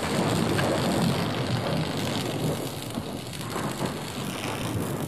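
Thunder-and-lightning sound effect: dense crackling electrical noise over a low rumble.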